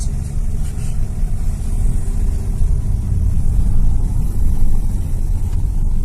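Car driving slowly, heard from inside the cabin: a steady engine hum over a continuous low rumble of road noise.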